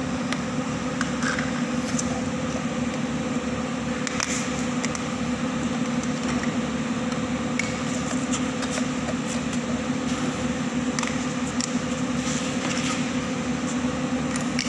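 Steady hum of a running motor-driven machine, with a fast low throb, and scattered light clicks and taps as plastic lids are fitted onto filled plastic jars.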